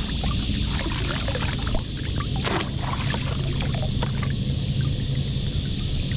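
Water splashing, trickling and dripping as a mesh crab trap is dunked and lifted in river water to rinse the mud off, with a steady high hiss behind.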